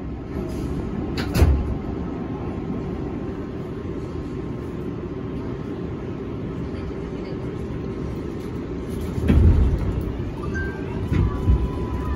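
Interior of an elevated 7 line subway car standing at a platform with its doors shut, then starting to pull away: a steady low rumble with a few low thumps, one about a second and a half in and two more near the end, and a steady tone that begins near the end.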